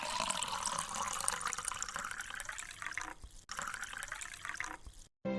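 Water being poured into a pot, in two pours: the flow stops about three seconds in, then runs again until shortly before the end.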